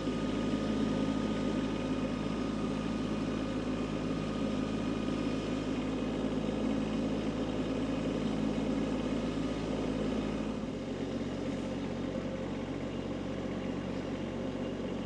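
Kubota B2301 compact tractor's three-cylinder diesel engine running steadily as the tractor drives along. About eleven seconds in, the engine note changes and gets slightly quieter.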